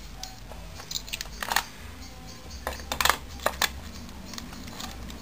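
Sharp metallic clicks and clinks of Sachs 50cc engine parts (gear cluster and aluminium casing) being handled and fitted together during reassembly. A few scattered ticks, with small clusters about a second and a half in and again around three seconds in.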